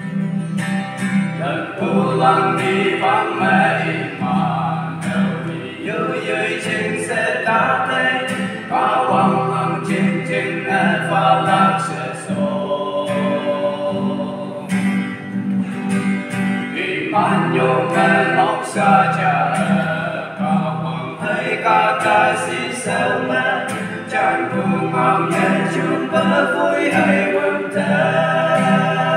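Male vocal group singing a song in harmony, accompanied by an acoustic guitar.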